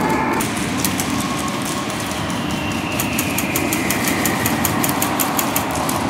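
Airsoft guns firing rapid strings of shots: scattered sharp snaps at first, then a fast, even run of shots from about halfway through to near the end, over a constant rumbling background.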